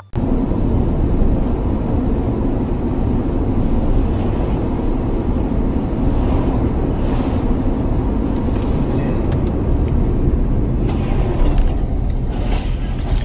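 Car driving at highway speed: a steady, loud rumble of road, tyre and engine noise heard inside the cabin, with a few sharp clicks near the end.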